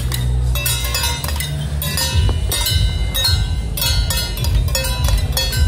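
Temple procession percussion: a drum rumbling under repeated ringing strikes of cymbals and small gongs, keeping up a steady, uneven beat.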